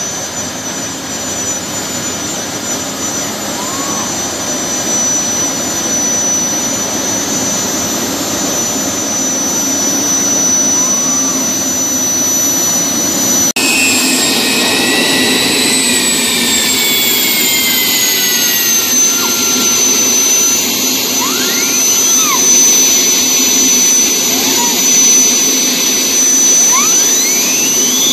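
Offshore catamaran powerboat's engines running at low speed, a deep rumble under a steady high-pitched whine. About halfway through the whine drops in pitch and settles as the boat eases in.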